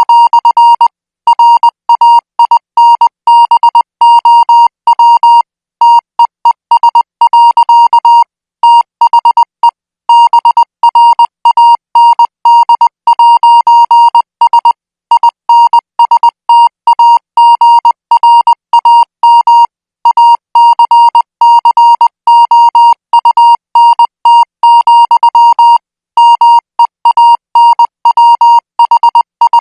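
Morse code training signal at 20 words per minute: a single high-pitched beep keyed rapidly on and off in dots and dashes, with short pauses between groups every few seconds.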